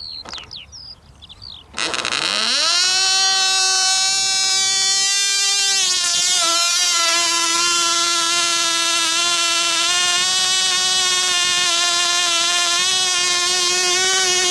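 Cox Tee Dee .010 glow engine, the world's smallest production internal combustion engine, catching suddenly about two seconds in, climbing quickly in pitch, then running at a steady high-pitched whine with a slight waver. The engine is tuned quite rich for running-in.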